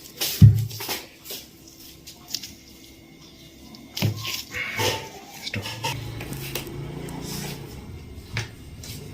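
A dull, heavy thump about half a second in, then scattered knocks and handling noises as a patient is worked on and repositioned on a chiropractic treatment table during an adjustment. A low steady hum comes in past the middle.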